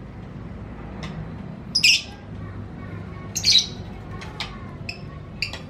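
White-rumped shama (murai batu) giving short, loud calls and phrases, the two loudest about two and three and a half seconds in, with a few quicker single notes near the end.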